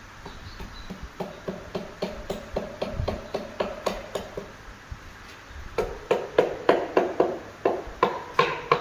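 A hammer tapping a wall tile to bed it into the mortar: a run of light, ringing taps about four a second, a short pause, then a louder run of taps.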